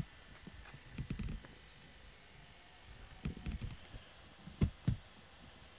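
Close handling noise as a cat is petted and rubs up against the camera: soft low bumps and rustling of fur, in a few scattered clusters, with two sharper bumps about four and a half and five seconds in.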